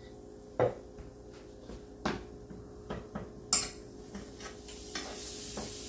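Kitchen utensils knocking and clinking against a skillet and dishes, about six sharp separate knocks. Near the end a steady sizzle starts up in the pan.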